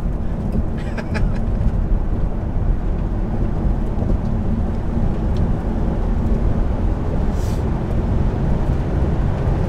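Steady low rumble of tyre and road noise inside the cabin of an electric Tesla Model 3 Performance being driven hard around a race track, with a short hiss about three quarters of the way through.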